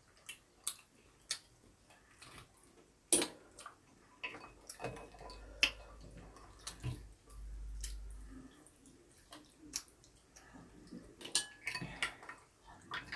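Chopsticks clicking and scraping against ceramic bowls and a plate as jjajangmyeon noodles are mixed and picked up: scattered light clicks and taps, with a brief low hum near the middle.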